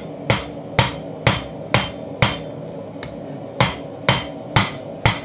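Hand hammer blows on a red-hot Damascus steel knife blank on an anvil, about two a second, each with a short metallic ring. There is a pause of about a second midway before the blows resume.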